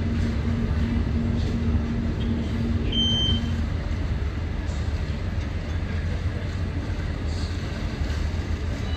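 Passenger ferry's engine running with a steady low rumble under the wash of water and wind on deck. A steady hum within the engine noise stops about three and a half seconds in. A brief high-pitched call comes about three seconds in.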